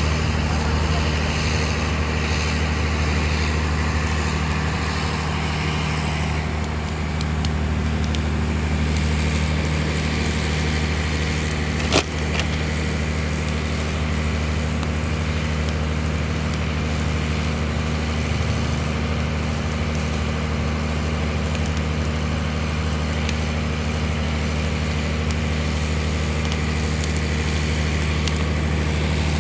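Long open wood fire burning and crackling, with one sharp crack about twelve seconds in, over a steady low hum.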